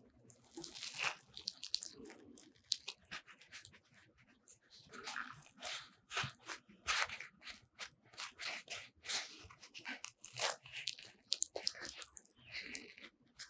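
A freshly baked corn and cheese bread roll squeezed and torn apart by hand, its crust and crumb giving irregular soft crackling and crunching.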